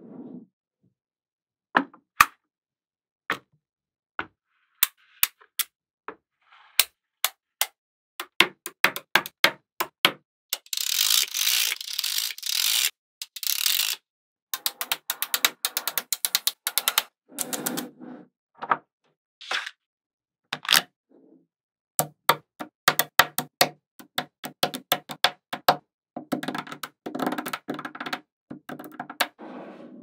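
Small magnetic balls clicking as strips and clusters of them snap onto each other: single sharp clicks, with several stretches of dense rapid rattling clicks.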